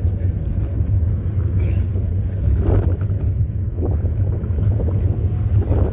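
Wind buffeting the microphone of a camera carried on a moving bicycle: a steady low rumble, with a few brief louder gusts.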